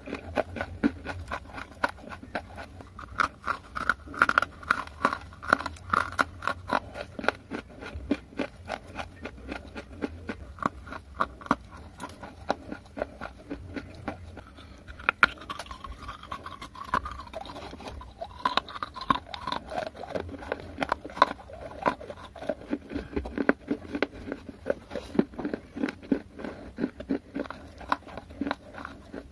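Close-up chewing of baked clay pieces coated with a creamy paste: a rapid, uneven run of crisp crunches and clicks.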